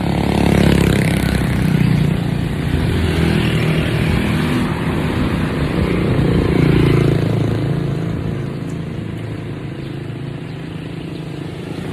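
Motor vehicle traffic passing, engines running; the engine sound swells about a second in and again around seven seconds, then fades.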